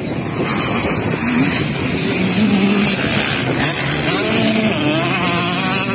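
Dirt bike engine revving hard, its pitch rising and falling.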